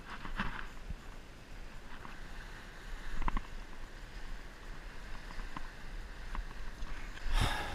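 Ocean surf washing on a rocky shore, with a few small clicks and scuffs from fishing tackle being handled. A louder rush of noise comes in near the end.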